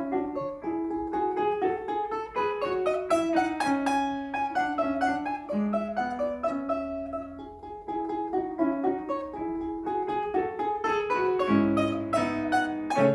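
Live performance of a Russian folk-tune arrangement on a plucked string instrument with piano accompaniment: quick picked melody notes, with fuller, lower chords near the end.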